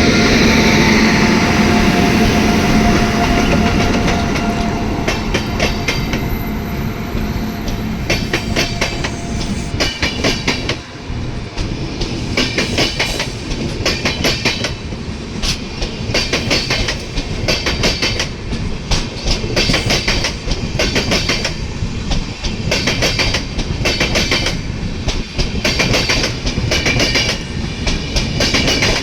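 Express passenger train departing and rolling past on the main line: a steady hum at first, then from about eight seconds in the coaches' wheels clicking over the rail joints in clusters, roughly one cluster a second.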